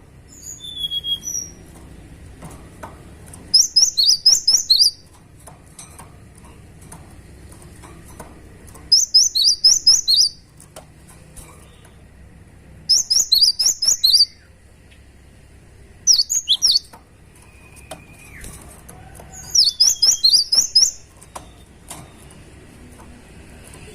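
Cinereous tit (gelatik batu) singing in short bursts of quick, high, downward-slurred notes, about six or seven notes to a burst, with pauses of a few seconds between bursts; five bursts in all, with a few fainter single calls in between.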